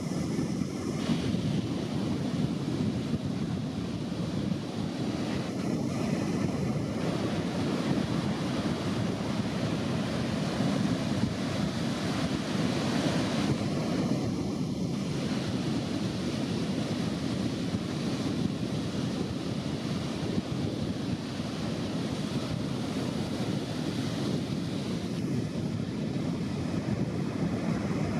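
Strong wind buffeting the microphone over ocean surf, a steady rushing noise with no let-up.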